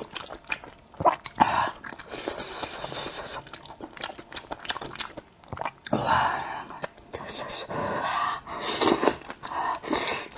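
Close-miked eating of thick, saucy noodles: several long wet slurps as the noodles are sucked in, between them chewing and lip smacks.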